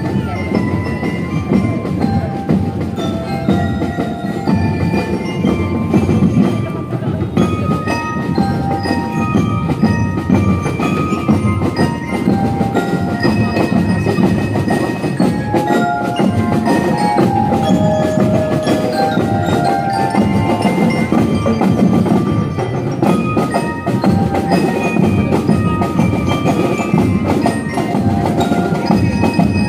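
A marching drum and lyre corps playing: bell-lyres ring out a melody of short, bright notes over steady marching drums.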